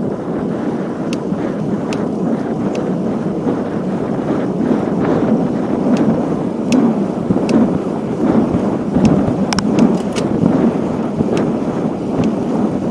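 Wind buffeting the microphone of a camera on a road bicycle at riding speed, over steady tyre rumble on asphalt, with light sharp ticks about once a second.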